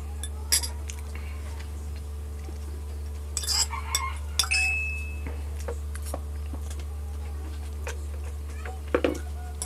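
Metal fork clicking and scraping on a ceramic plate a few times, one clink about four and a half seconds in ringing briefly, over a steady low hum.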